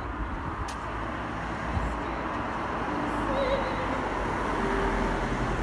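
Road traffic: a steady hum of passing cars that grows a little louder toward the end.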